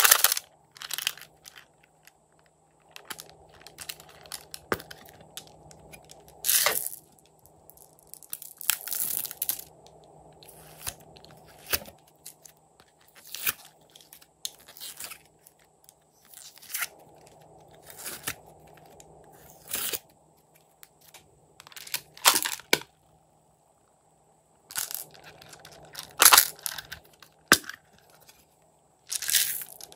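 Hard plastic toy cases and their contents being handled and opened: irregular sharp clicks and crackles of plastic, some short and some lasting about a second, over a faint steady background hiss.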